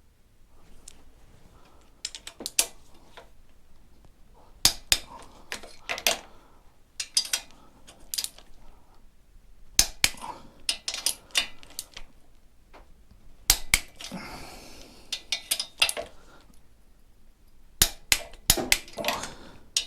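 Ratcheting click-type torque wrench tightening cylinder head nuts up to 39 Nm: clusters of sharp metallic clicks, several times over, with pauses between them.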